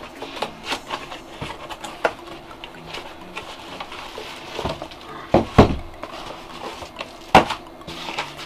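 A cardboard tool box being opened and unpacked by hand: cardboard and plastic wrapping rustling and scraping, with scattered clicks and a few knocks of items set down on a wooden table, the loudest a little past halfway and again near the end.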